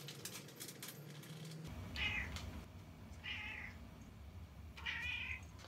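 Ginger tabby cat meowing three times, about a second or so apart, begging for a treat.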